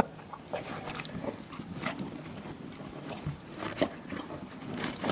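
A dog rolling and wriggling in snow: irregular crunching and rustling strokes, with a sharp knock at the very start.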